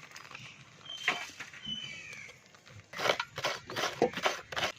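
Loud rhythmic scraping or rasping strokes, about three a second, starting about three seconds in. They follow a few short, high gliding chirps.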